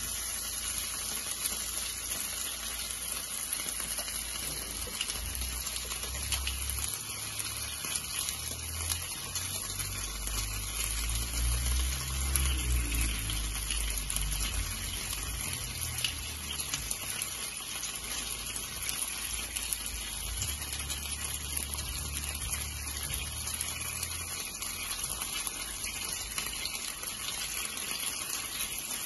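Chicken wings sizzling on a hot electric grill plate: a steady hiss with faint crackles, over a low rumble that grows louder around the middle.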